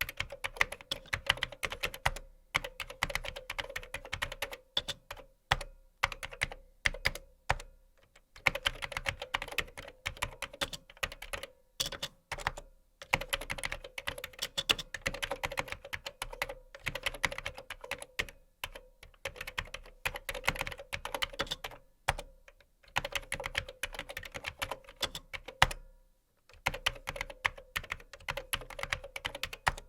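Typing on a computer keyboard: fast runs of key clicks in bursts of a few seconds, broken by short pauses, with occasional louder key strikes.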